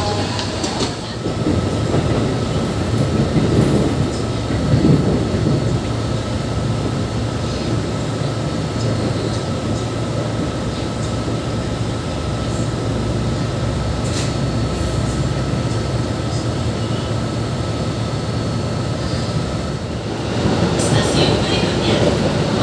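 KRL Commuter Line electric train heard from inside the passenger car: a steady rumble of wheels and running gear on the track, with a thin, steady high whine for most of the time. The whine stops about twenty seconds in and the sound turns brighter.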